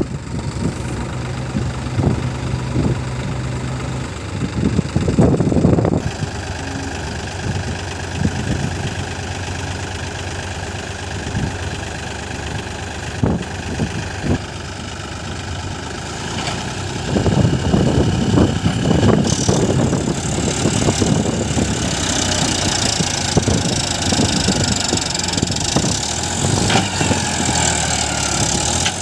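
JCB 3DX backhoe loader's diesel engine running steadily, then working harder and louder from a little past halfway to the end. There are a few low thumps early on.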